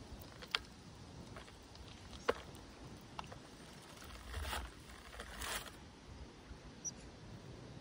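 Cat eating wet cat food from a bowl: a few sharp, wet clicks of chewing and licking spread over the first few seconds, then two short rustles.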